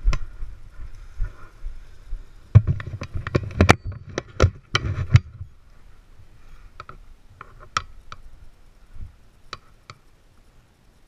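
Contact noise from handling parachute gear just after landing: irregular knocks and clicks, with a dense run of loud thumps about two to five seconds in, then sparser, fainter clicks as the collapsed canopy's lines and toggles are handled.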